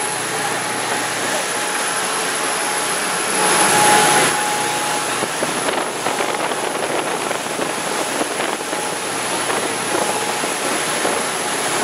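Fishing boat running at speed. Its engines drone under a steady rush of wind and churning wake water, which swells briefly about four seconds in.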